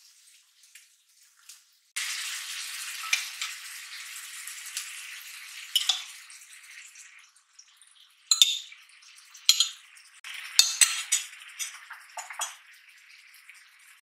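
Tofu slices sizzling as they fry in oil in a skillet; the sizzle starts suddenly about two seconds in and fades over the next few seconds. In the second half, utensils clink and scrape sharply against the pan several times.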